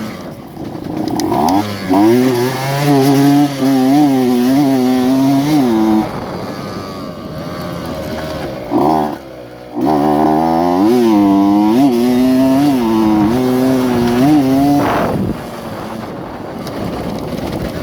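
Two-stroke single-cylinder engine of a modified underbone motorcycle, a Yamaha F1ZR, revving up and down in repeated surges and twice dropping back to a lower, steadier running note between them.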